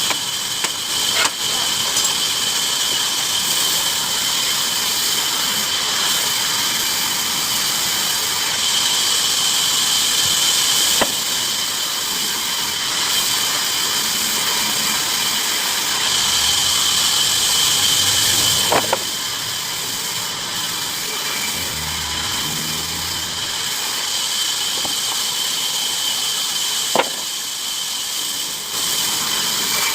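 Bandsaw blade cutting through wood: a steady hiss with a constant high whine, broken by a few sharp ticks.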